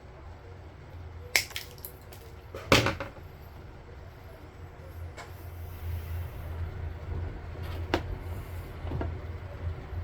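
Sharp clicks and knocks of crimping pliers and an RJ45 network cable connector being handled, the two loudest about one and a half and three seconds in, with a few fainter ones later. Throughout there is a steady low rumble.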